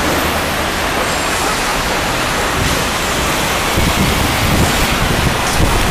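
Steady loud rushing noise of wind on the microphone mixed with road traffic, with gusty low rumbles from about four seconds in.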